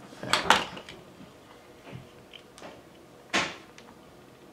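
Plastic sunglasses and eyeglasses being handled and put on: a loud rustling knock about half a second in, a faint tap near two seconds, and a sharp click about three and a half seconds in.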